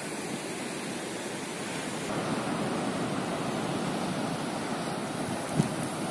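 Ocean surf breaking on the rocky shore below, a steady wash of noise that grows somewhat louder about two seconds in, with one brief knock near the end.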